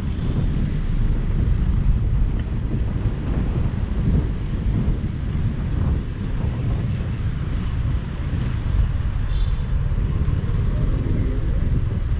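Motorcycle riding in traffic: steady wind rush on the helmet microphone over the bike's engine running, with the rumble of trucks alongside.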